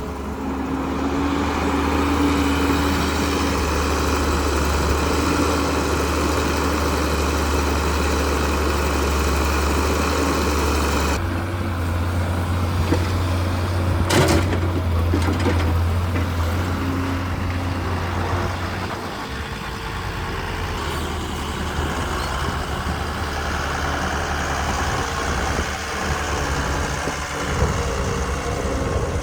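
Heavy diesel engine running steadily. The sound changes abruptly about eleven seconds in, and a brief sharp noise follows a few seconds later.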